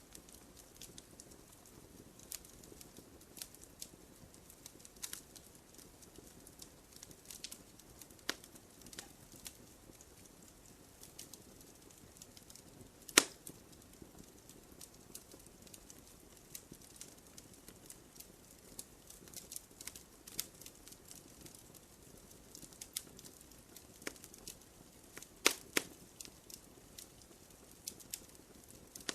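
Campfire crackling: scattered sharp pops and snaps over a faint hiss, with one loud pop about halfway through and two more strong ones toward the end.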